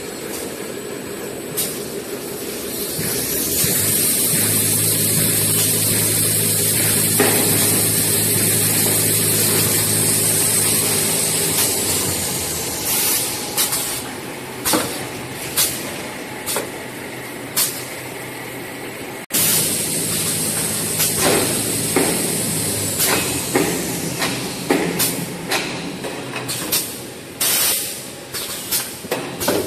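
Toilet roll converting and packing machinery running: a steady motor hum with a high whine for several seconds, then many irregular sharp clacks and knocks from the conveyors and packing mechanism.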